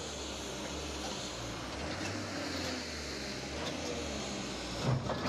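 Tracked excavator's diesel engine running steadily as its bucket lifts and breaks up concrete road slabs, with a sharp knock near the end.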